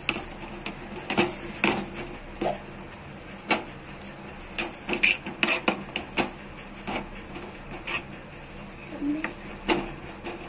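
Steel ladle knocking and scraping against an aluminium pot as thick ragi mudde dough is beaten and stirred: irregular sharp clacks, sometimes several in quick succession.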